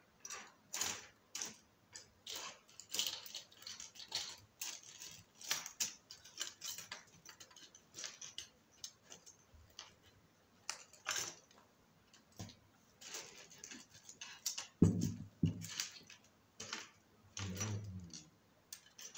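Small irregular metallic clicks, taps and scrapes of hands and a small tool working on an opened Oukitel WP6 phone's metal mid-frame and parts, with a couple of duller knocks about fifteen and seventeen seconds in.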